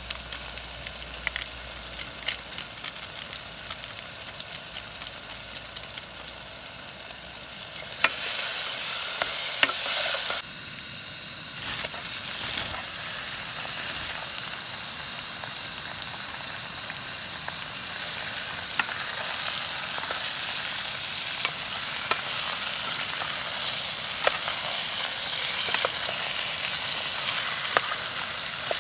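Onion, tomato and spice masala frying in oil in an aluminium pot: a steady sizzle with scattered clicks of a metal spoon against the pot. Raw chicken pieces are tipped in and stirred through, and the sizzle grows louder about eight seconds in and again later on.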